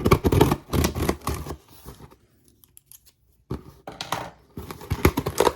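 Packaging of a keyboard box being torn open and handled: a second and a half of tearing and crinkling, a pause of about two seconds, then more rustling with small knocks.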